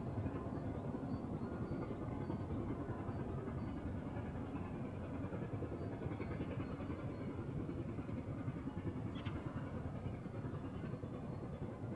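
Railway train running: a steady low rumble without a clear beat.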